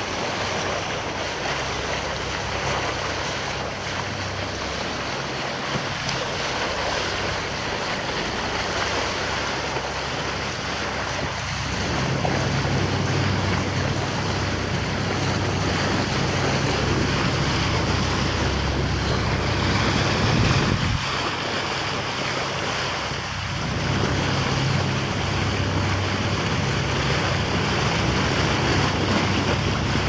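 Wind buffeting the microphone over rushing sea water, with a steady low engine drone underneath that gets a little louder about midway.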